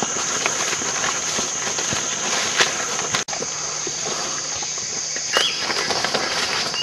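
Footsteps on a forest trail and leaves rustling and brushing as someone pushes through undergrowth, over a steady high insect drone. The sound drops out briefly about halfway through, and a few short chirps come near the end.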